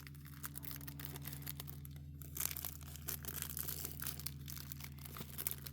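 Packaging crinkling and tearing in irregular rustles as a diamond painting kit is unwrapped by hand, over a steady low hum.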